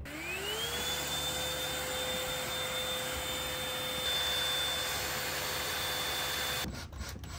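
Bissell cordless handheld vacuum switched on: its motor whine rises over the first second, then runs steadily with a rushing hiss, cutting off suddenly near the end.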